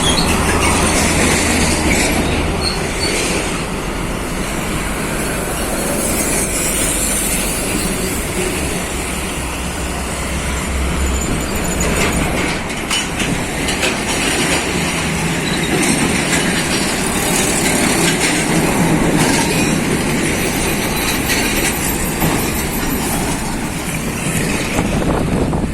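Heavy diesel trucks driving past at close range, engines running with tyre and road noise, and rattles and knocks from their trailers. A low engine drone is strongest for the first ten seconds or so, then fades as the trucks move on.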